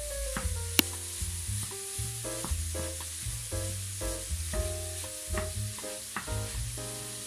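Beef mince and onion sizzling in a hot frying pan while being stirred and broken up with a wooden spatula, with one sharp tap about a second in. Background music plays alongside.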